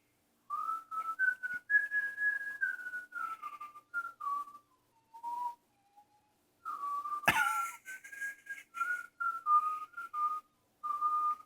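A person whistling a tune in short phrases with brief pauses between them, and a single sharp knock about seven seconds in.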